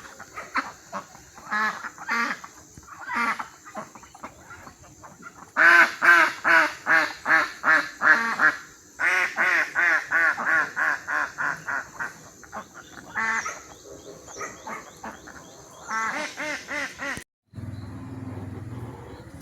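Ducks quacking in quick runs of short calls, about three to four a second, loudest in the middle stretch. Near the end the calls cut off suddenly and a low steady hum follows.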